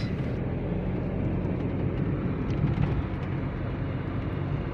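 A 2018 Toyota Wigo's three-cylinder engine and road noise as the car is driven at a steady pace, an even hum with no stumbling. The cylinder 2 misfire has been cleared by cleaning and re-gapping the spark plug and ignition coil, and the mechanic says it now runs without problems.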